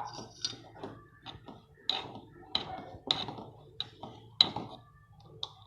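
A stirring spoon knocking and scraping against a cooking pot while thickened multigrain porridge is stirred, about a strike every half second to a second with a bright ring on each.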